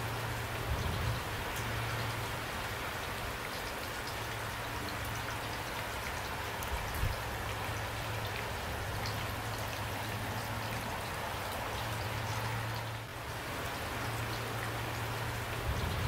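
Steady rain falling, a constant hiss with scattered sharp ticks of individual drops, over a low steady hum. The sound dips briefly about thirteen seconds in.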